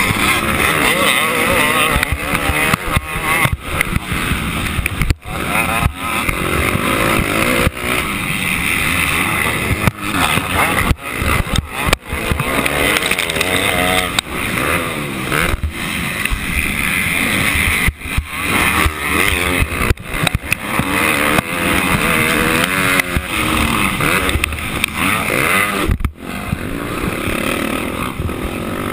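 Motocross dirt bike engine at racing speed, revving up and dropping off again and again as the rider works the throttle around the track, with a few momentary gaps in the sound.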